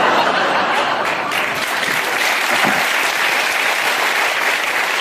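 Studio audience applauding, a steady wash of many hands clapping.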